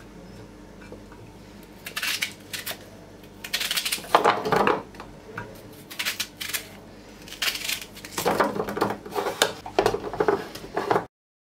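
Kitchen handling clatter: vegetable pieces knocking into a glass mini chopper bowl, with a knife and the chopper's plastic parts clicking, in several short bursts and a denser run near the end as the motor top is fitted. The sound cuts off abruptly about a second before the end.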